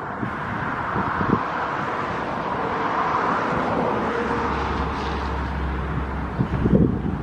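Steady rumble of a passing vehicle, with a low hum setting in partway through and wind buffeting the microphone near the end.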